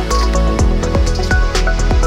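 Background electronic music with a steady beat.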